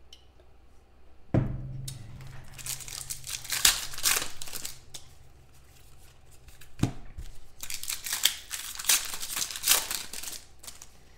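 Foil wrappers of trading-card packs crinkling and tearing as they are opened by hand, in two spells of crackling, each starting with a knock.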